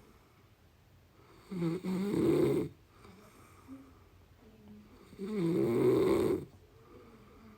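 A person snoring in deep sleep: two loud rasping snores, each about a second long, about three and a half seconds apart, with quiet breathing between them.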